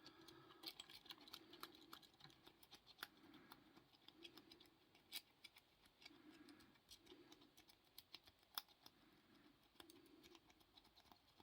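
Faint, irregular metallic clicking and light scraping of a lock pick being raked in a padlock's keyway, with a couple of sharper clicks about five and eight and a half seconds in.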